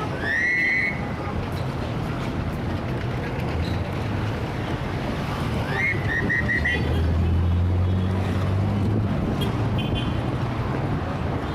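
Heavy city street traffic: a steady wash of engine and tyre noise. A car horn sounds in the first second, and about six seconds in a horn gives a quick series of about four short toots. A low engine rumble from a big vehicle swells in the second half.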